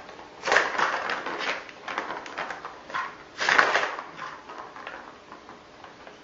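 Clattering and scrabbling in two loud bursts, about half a second in and again about three and a half seconds in, with lighter knocks between: a cat crashing into household things on a failed jump.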